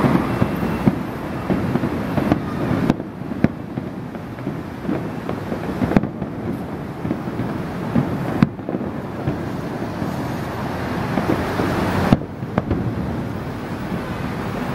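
Aerial firework shells bursting in a continuous barrage: a dense rumble and crackle, with several sharper, louder bangs standing out a few seconds apart.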